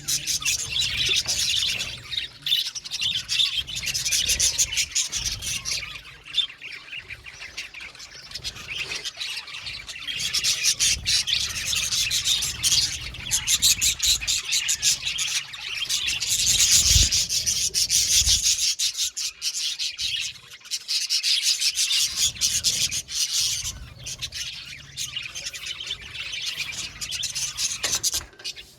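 A group of budgerigars chirping and chattering together, a dense, rapid warble that swells and dips in waves, with occasional squawks.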